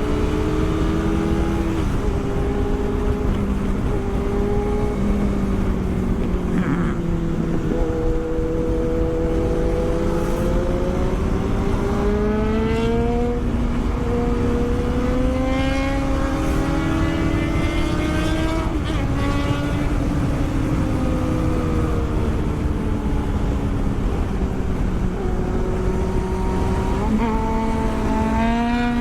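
Sport motorcycle engine under way, its pitch climbing and falling several times as the bike speeds up and slows, with a few sudden drops in pitch. A steady rush of wind and road noise runs under it.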